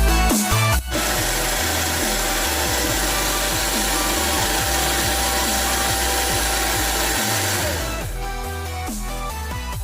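Electronic dance music with a steady beat. From about a second in, a loud hiss-like noise layer with a held synth tone covers most of the mix, then fades near the end as the tone slides down.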